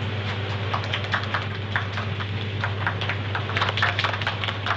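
Irregular sharp clicks and knocks, a few a second, over a steady low machinery hum on a ship's deck.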